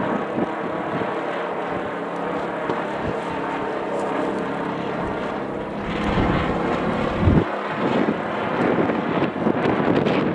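A kite droning and buzzing in strong wind, under a rush of wind on the microphone. It gets louder and gustier about six seconds in.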